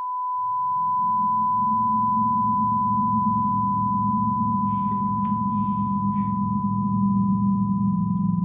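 A steady, high-pitched single-tone ringing, the film's ringing-ears effect after a loud bang, over a low droning rumble that swells in during the first second.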